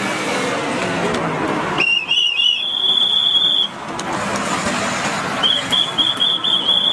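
A pea whistle blown in two long, trilling blasts, one about two seconds in and another near the end, over steady road noise from passing traffic.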